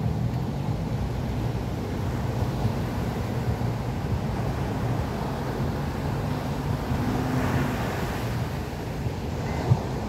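Atlantic surf breaking and washing up a sandy beach, with wind buffeting the microphone and a low steady hum underneath. A single sharp knock near the end.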